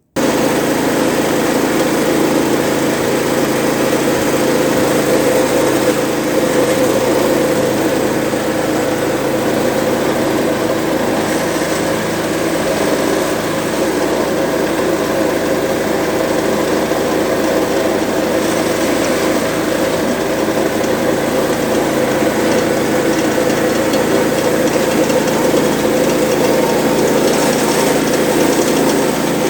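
Troy-Bilt snowblower's engine running steadily.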